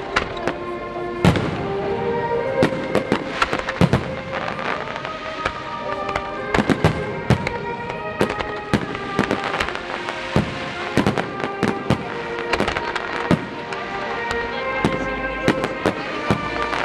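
Fireworks display: aerial shells bursting in a rapid, irregular run of sharp bangs and crackles, several a second at times. Music with held notes plays underneath.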